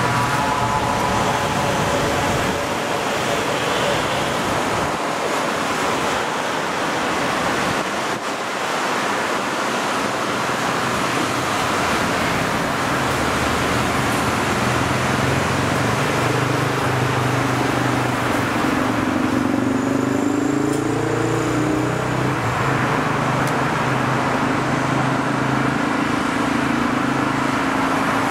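The twin turboprop engines of a US Navy C-2A Greyhound run as it taxis, making a loud steady rush of turbine and propeller noise. The low propeller hum grows stronger in the second half, and its pitch wavers briefly about two-thirds of the way through as the aircraft turns.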